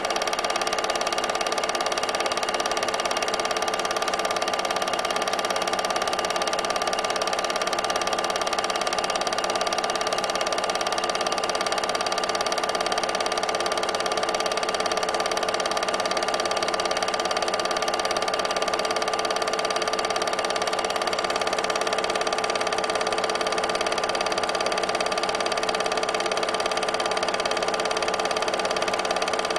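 Steady mechanical whirr and hum of a running film projector, with no changes and no other sound.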